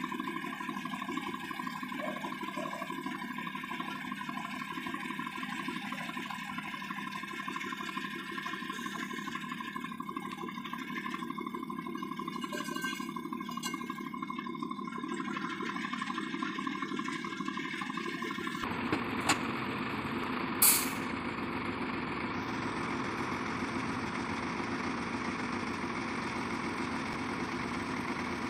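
Heavy truck's diesel engine idling steadily. About two-thirds of the way through come a couple of clicks and then a short, sharp hiss of released air.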